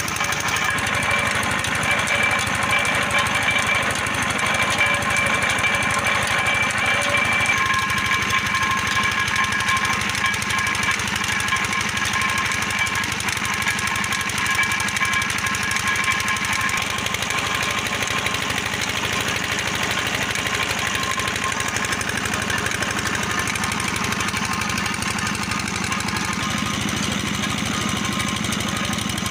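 Belt-driven sugarcane crusher (velna) running steadily under engine power, with a dense, even engine knocking and a mechanical clatter from its gears and rollers as cane is crushed for juice.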